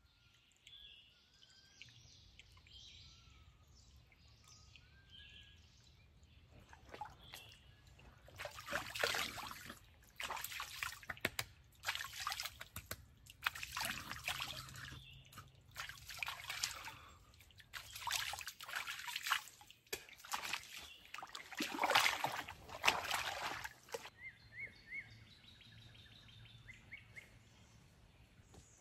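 Hands scooping and splashing creek water in a run of irregular splashes, as from washing the face at a stream, with faint birdsong before them.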